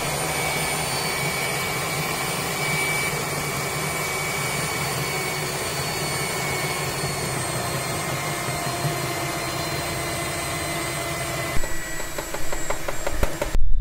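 Philips stand mixer running steadily, its beaters whipping the egg and sugar batter as flour is added. Near the end the steady running gives way to a few knocks.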